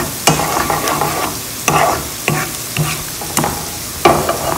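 Eggs sizzling in hot oil in a frying pan while a plastic slotted spoon breaks them up and scrambles them, its scraping strokes against the pan coming about every half second.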